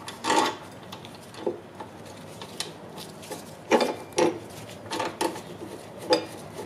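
Metal parts on a go-kart's steel rear axle being handled and fitted by hand: a handful of irregular clinks, knocks and short scrapes as the brake disc carrier and fittings are slid and positioned on the axle.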